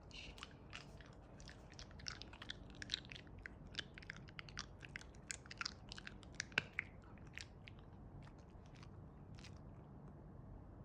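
A dog making quick, irregular little clicks and crunches, thick for most of the first seven or so seconds and then only now and then.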